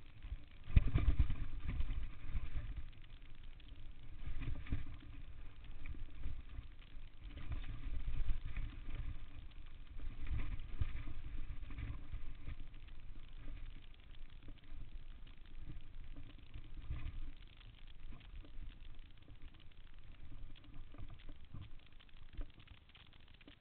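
Downhill mountain bike rolling fast over a dirt trail, with wind rumbling on the microphone and the bike knocking and rattling over bumps, loudest about a second in.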